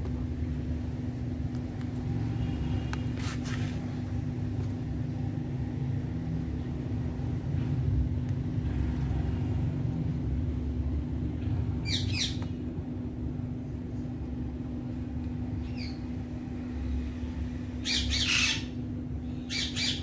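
Female Indian ringneck parakeet giving a few short calls, scattered and spaced several seconds apart, the loudest pair near the end. A steady low hum runs underneath.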